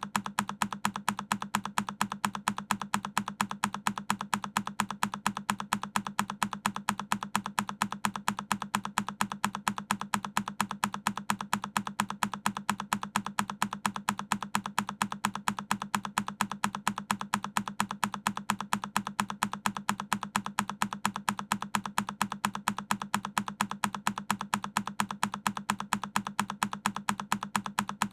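One key on a Keychron K10 mechanical keyboard pressed over and over in a fixed loop: sharp, evenly spaced clicks, several a second.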